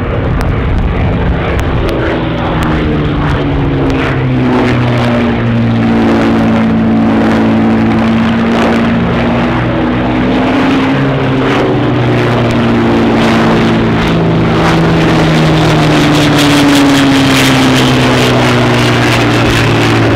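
Two Hawker Nimrod biplanes' Rolls-Royce Kestrel V12 engines droning steadily at display power, the engine note slowly falling and rising in pitch as the aircraft pass and manoeuvre.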